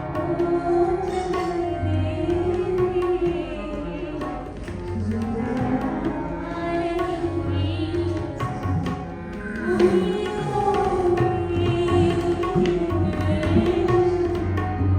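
Live Pakistani classical music: tabla drumming, with deep ringing bass strokes under quicker strokes, accompanying a melody that glides up and down in pitch over harmonium.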